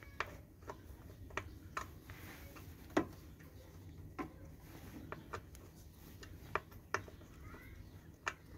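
Irregular sharp metallic clicks and light knocks, about a dozen, the loudest about three seconds in, as hand tools and parts are handled during removal of the oil pump from the engine.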